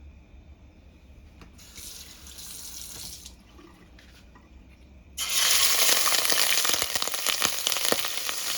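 Shrimp going into hot cooking oil: about five seconds in, a loud sizzle starts suddenly and keeps going, full of spattering crackles, because the shrimp are wet. A softer hiss comes and goes about two seconds in.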